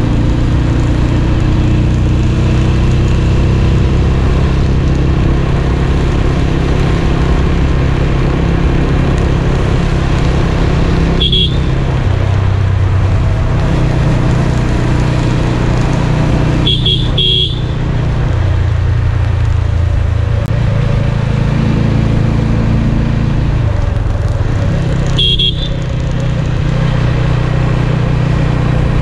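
Motorcycle engine running steadily under way, its pitch shifting now and then. A horn beeps once about a third of the way in, twice in quick succession a little later, and once more near the end.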